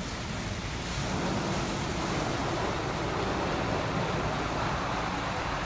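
Istobal M12+ rollover car wash at work: rotating brushes scrubbing a car under water spray, a steady swishing rush that gets a little louder about a second in.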